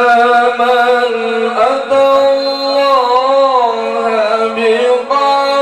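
A man reciting the Quran in the melodic tilawah style, holding long notes with wavering ornaments through the middle. His pitch steps up to a new note about a second and a half in and again near the end.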